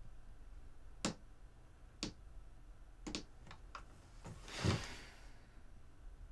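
Scattered single clicks of laptop keys, about six of them, unevenly spaced, then a breath out about four and a half seconds in, the loudest sound here.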